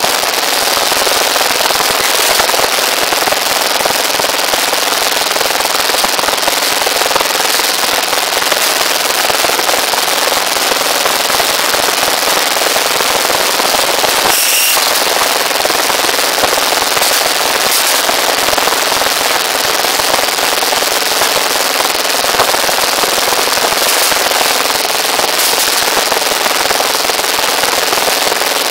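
Motor-driven rebar bending machine running steadily, a loud dense rattling clatter, with a brief sharper clank about halfway through.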